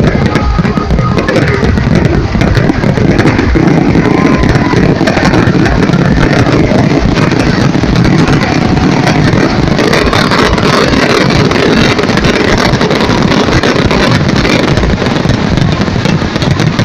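A dense, unbroken barrage of fireworks bursting and crackling, loud throughout.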